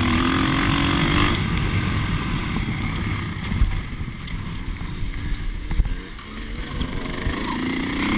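Dirt bike engine running on a trail. It eases off through the middle and picks up again near the end, rising in pitch.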